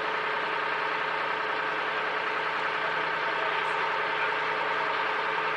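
Boat engine running steadily under a light, fixed throttle as the boat moves off slowly.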